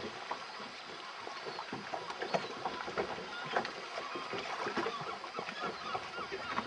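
Boat-on-water sounds: a busy, irregular patter of small knocks and splashes of water against a boat hull, with a few short high chirps.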